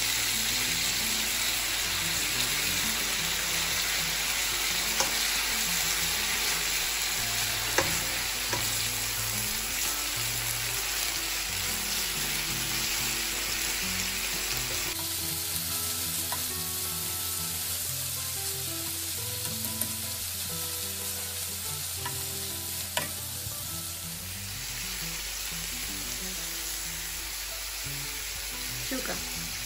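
Pork, onion and carrot sizzling in a hot frying pan as they are stir-fried, a steady hiss with a few sharp clicks of the cooking fork against the pan.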